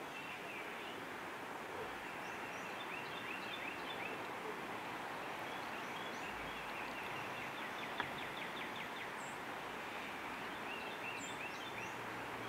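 Outdoor ambience: a steady soft hiss with wild birds chirping throughout, a fast trill of repeated notes about eight seconds in, and a single sharp click at about the same moment.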